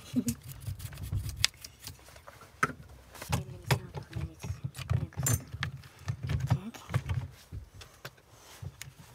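Hand tools and small metal parts clinking and knocking as they are handled during disassembly, in irregular sharp clicks with dull low thumps between them.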